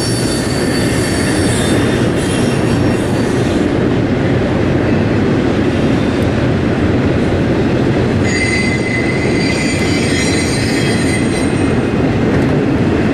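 CSX double-stack intermodal freight train rolling past with a steady rumble of wheels on rail. Thin, high wheel squeal comes in near the start and again from about two-thirds of the way through.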